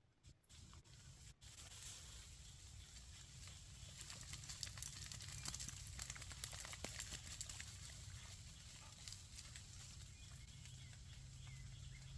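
Quick, irregular crackling footsteps through dry leaves and brush, starting about a third of the way in and thinning out after a few seconds, over a faint low hum.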